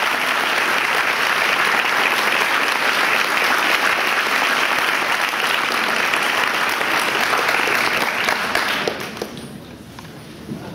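An audience applauding in a school gym, the clapping thick and steady before it dies away about nine seconds in, with a few last scattered claps.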